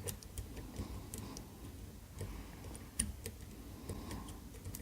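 Faint, irregular small metallic clicks and ticks of a flag pick working the pins of an ABUS EC550 dimple cylinder under tension, with one slightly louder click about three seconds in.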